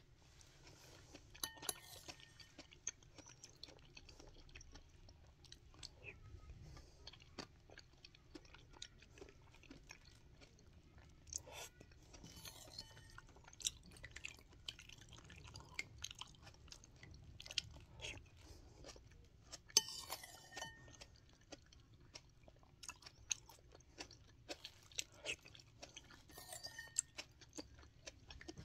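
Close-up chewing of es campur, a milky iced dessert with jelly pieces, with soft crunches and many small mouth clicks. A metal spoon clinks against the ceramic bowl a few times with a short ring, loudest about twenty seconds in.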